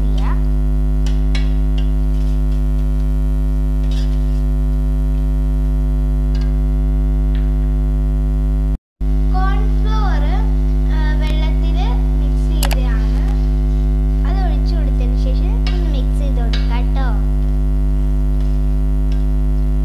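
Loud, steady electrical mains hum with many overtones, cut off for a moment near the middle. Faint voices come in behind it from about ten seconds in.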